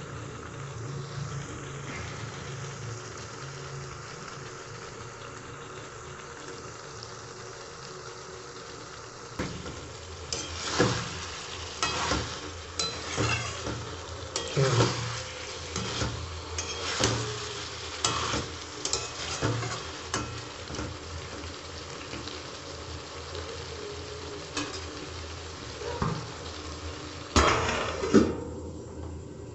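Chicken curry sizzling in a metal wok as it is cooked down. From about ten seconds in it is stirred, with roughly one scraping stroke a second against the pan. Near the end a steel lid clatters against the pan.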